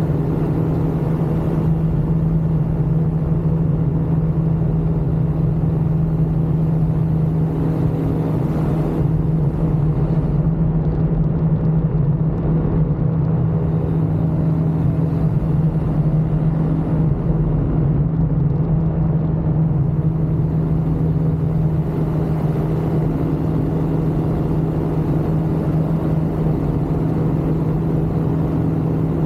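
Ultralight aircraft engine running at a steady, unchanging pitch: a constant drone with rumble.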